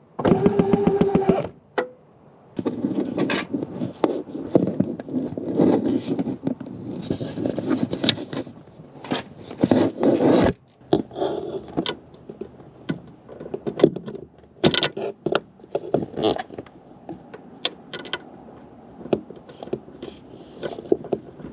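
Metal clinking and scraping of a socket wrench on extension bars and a universal joint, working the bolts of a truck camper's slide-out roller bearings. A brief steady hum comes first, then many irregular clicks and scrapes.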